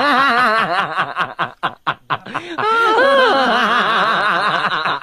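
A person laughing in a quick run of rising-and-falling 'ha' sounds, which break into short choppy bits partway through and then pick up again.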